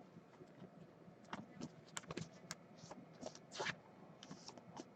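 Faint, scattered rustles and light clicks of trading cards and their plastic sleeves being handled on a table.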